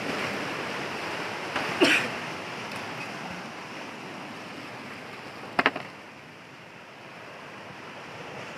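Surf washing steadily against a rocky shore, with two sharp knocks of a metal bar striking the rock as it is worked into a crevice, one about two seconds in and a quick double knock a little past five seconds.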